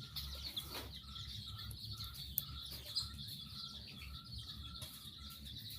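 A flock of farmed chickens calling: a constant scatter of high chirps, with one repeated short call about three times a second, over a low background rumble.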